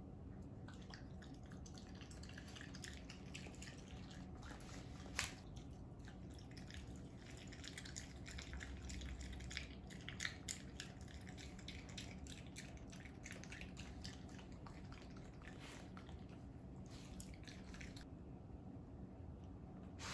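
A raccoon eating wet avocado chunks: a run of faint, quick wet clicks and smacks of chewing and handling the food, with one sharper click about five seconds in. It goes quieter near the end.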